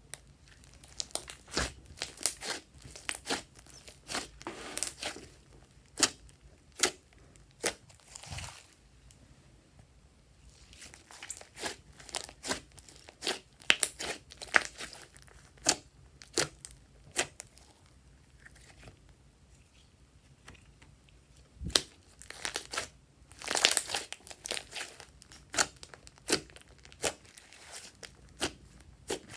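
Store-bought slime being squeezed, stretched and kneaded by hand, giving irregular sharp clicks and pops, with a couple of quieter pauses.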